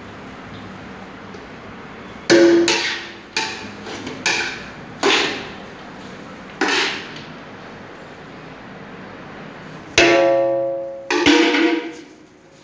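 Stainless steel pots and buckets clanking: a run of sharp metal knocks, each with a short ring, then about ten seconds in a louder clank that rings for about a second, and another soon after.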